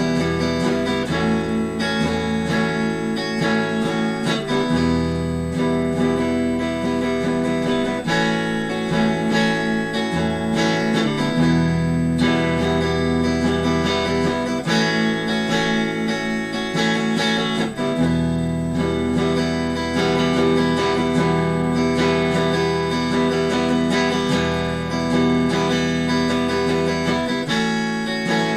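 Instrumental desert/ambient rock played on an electric guitar, a Squier Affinity Stratocaster through a Fender Frontman 15G amp, repeating a picked and strummed riff that shifts every few seconds.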